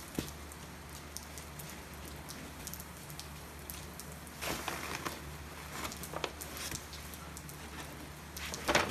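Steady rain patter, a constant hiss dotted with fine ticks, with a denser run of clicks about halfway through as cut potato sticks are laid into a wire fryer basket.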